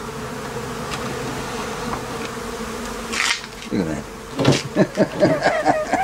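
A mass of honeybees on an observation-hive frame buzzing in a steady hum as the hive is set back in place. A short scrape comes about three seconds in, and louder, wavering sounds near the end.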